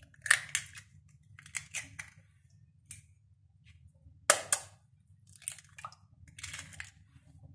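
Raw eggs being cracked with a steel spoon: sharp taps on the shells, then a short crunching crackle as each shell is broken apart over the bowl. The loudest tap is a little past four seconds in.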